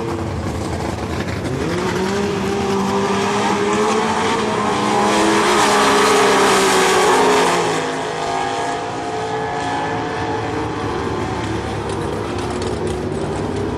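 Two Super Stock drag cars launching side by side at full throttle, their engines climbing in pitch as they accelerate. They are loudest as they pass close by, about five to seven seconds in, then drop away down the track.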